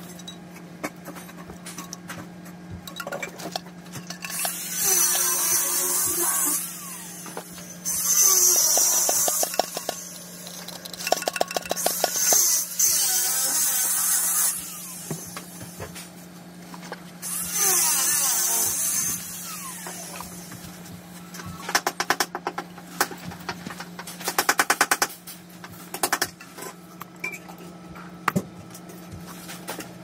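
Plastic toilet-tank fittings being assembled and tightened by hand: several scraping, rubbing bursts of a second or two each, then quick runs of clicking later on, over a steady low hum.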